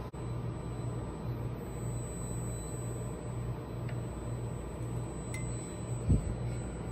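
Steady low machine hum that pulses about twice a second, with one low thump about six seconds in.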